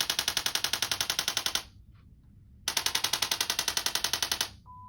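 ProAdjuster chiropractic instrument's handheld probe tapping rapidly on a neck vertebra, about ten taps a second, in two runs with a one-second pause between them. A short electronic beep tone starts near the end.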